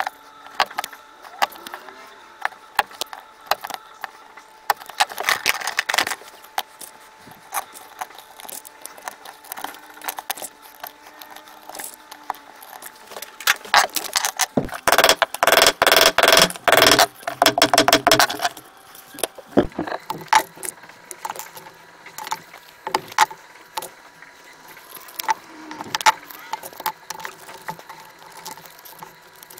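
Bench leatherwork: scattered clicks and knocks of a rotary leather punch and leather being handled, then about halfway through a loud, rapid run of hammer strikes setting metal rivets in a leather axe sheath.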